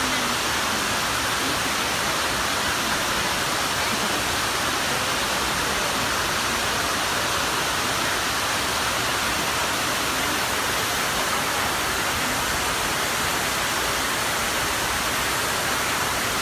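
Steady rush of water falling down the stone walls of the 9/11 Memorial's reflecting pool, a large man-made waterfall fountain, and spilling into the pool.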